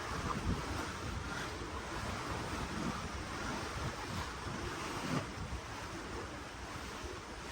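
Ocean water washing and churning below a cruise ship, a steady rushing with uneven swells, while wind buffets the microphone in low gusts.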